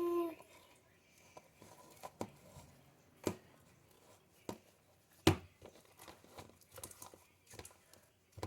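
Sticky slime being stretched and squeezed in the hands, giving off scattered small sticky pops and crackles, with a sharper pop about five seconds in.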